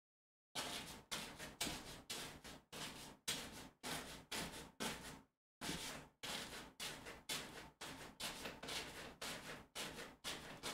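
A large paintbrush dabbing and scrubbing paint onto a stretched canvas, about two quick scratchy taps a second in a steady rhythm.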